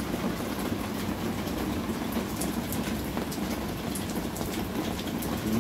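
Steady rain with a low, even rumble and scattered drops ticking.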